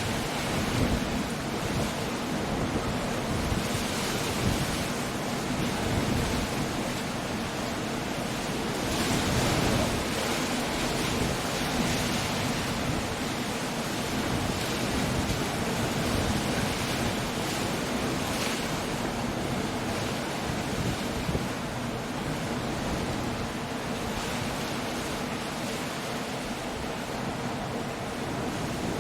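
Coastal storm: surf and waves crashing in slow swells under steady wind and rain, making a dense continuous noise.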